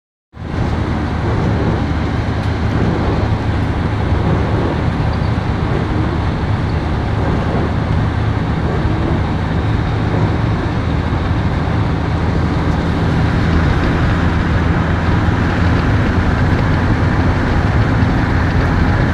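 Steady road-traffic and engine noise: a low hum under an even rushing hiss, growing a little louder after about thirteen seconds.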